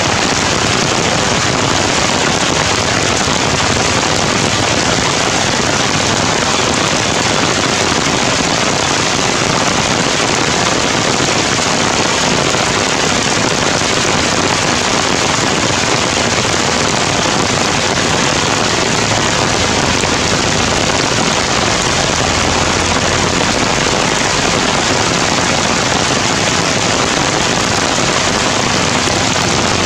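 Heavy rain pouring down on the tree canopy, a loud, even hiss with no letup.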